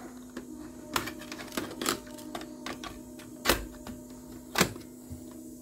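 Clicks and clunks of a cassette being loaded into an ESSO Twin Tower-05 stereo cassette deck: several sharp plastic snaps from the tape door and mechanism, the two loudest about three and a half and four and a half seconds in, over a steady low hum.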